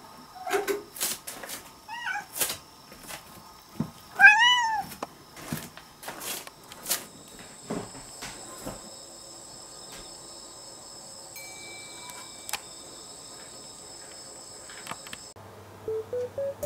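A tabby cat meowing three times in the first few seconds, the last and loudest about four seconds in, with scattered clicks and knocks.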